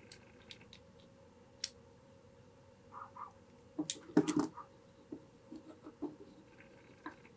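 Light clicks and knocks of hands handling wooden nunchaku sections while working a paracord knot down into the hole, with a short cluster of sharper knocks about four seconds in.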